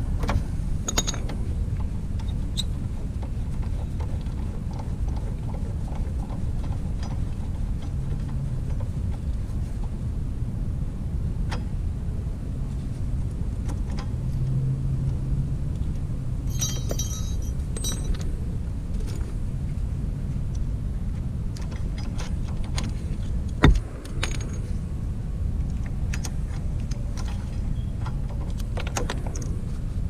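Hand tools on a motorcycle's front brake caliper: scattered light metallic clicks and clinks as the brake pad pins are worked with a ratchet and hex socket. There is a brief jingle of loose metal a little past halfway and one sharp knock about three-quarters of the way in, over a steady low rumble.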